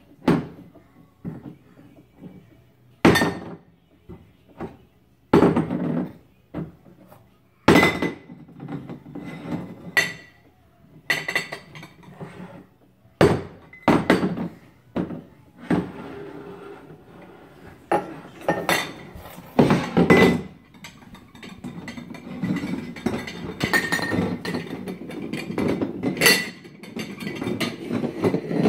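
Empty glass jars being knocked and clinked against each other and against a wooden floor by a baby's hands: irregular sharp knocks a second or two apart, some with a short glassy ring, growing into a denser, steady clatter in the last third.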